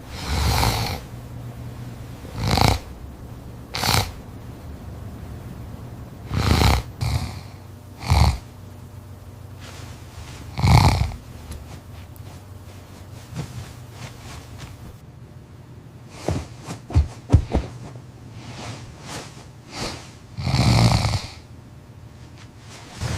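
A person snoring loudly, with about seven snores of under a second each, a couple of seconds apart. A lull in the middle holds several sharp clicks, and one more long snore comes near the end.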